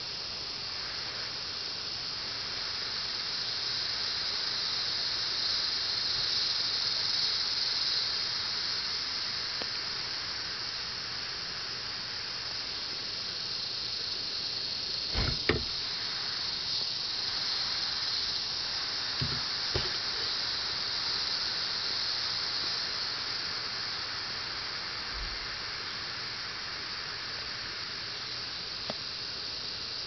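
Steady high-pitched chorus of rainforest insects, with a few dull knocks near the middle.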